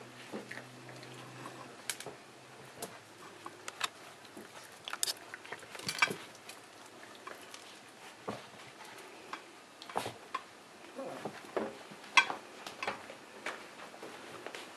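Wire fox terrier puppies eating dry kibble from dishes: irregular crunching and sharp clicks, the loudest about six and twelve seconds in.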